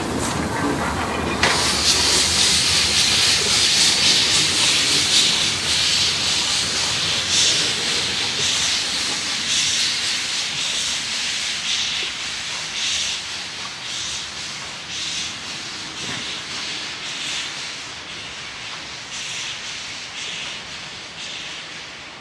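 Steam locomotive moving off with its cylinder drain cocks open: a loud hiss of steam starts suddenly about a second in and pulses with the exhaust beats at about one a second, fading as the engine draws away.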